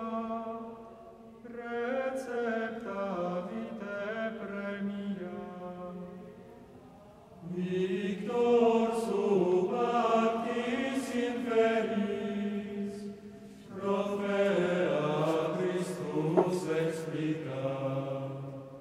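Background music of sung chant: voices holding long phrases, breaking off briefly twice.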